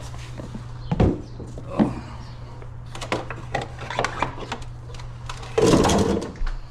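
Knocks, clunks and rattles of a garden hose being handled and tugged where it was stuck, over a steady low hum, with a louder burst of noise near the end.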